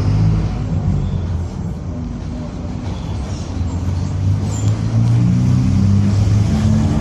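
Mercedes-Benz OF-1722M city bus under way: its diesel engine runs with a low drone that eases off about a second and a half in and builds again from about four seconds, with the differential growling.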